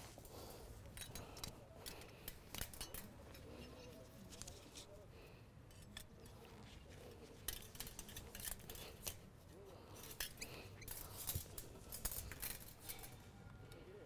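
Scattered light metallic clicks and rattles of galvanized lacing wire being pulled from a coil and worked by hand, at irregular moments over a low background rumble.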